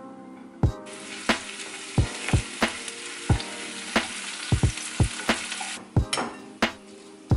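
Chopped green onion, ginger and dried red chilies sizzling in hot oil in a frying pan while stirred with a wooden spoon. The sizzle starts about a second in and stops about six seconds in. Background music with a steady drum beat plays throughout.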